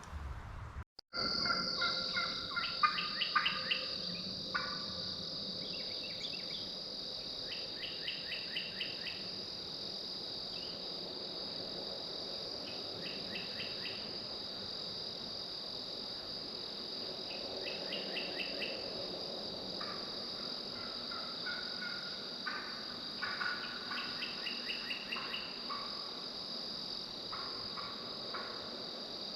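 Steady high-pitched insect chorus of crickets. Short rapid rattling bird calls come through it again and again.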